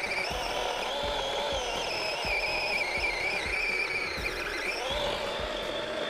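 Battery-powered DeWalt XR compact chainsaw's electric motor whining as the chain cuts through a thick log, its pitch wavering under load. The pitch sags about four seconds in and climbs back higher a second later.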